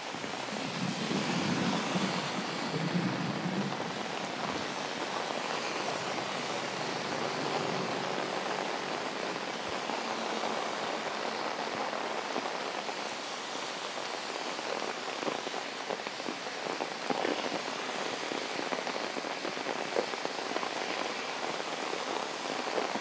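Heavy tropical rain falling steadily, drops pattering on an umbrella overhead, with a low rumble in the first few seconds.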